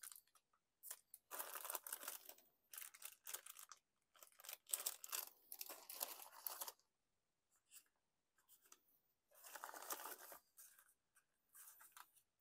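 Packaging rustling and crinkling in about five short bursts as the contents of a box of wrapped Japanese snacks are handled.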